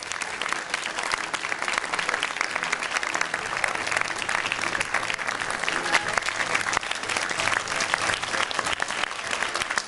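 Audience applause: many hands clapping in a dense, steady patter, with a few voices mixed in.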